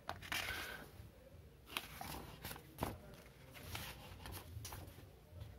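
Pages of a thick paperback book being turned by hand: faint paper rustling with several short, soft flicks.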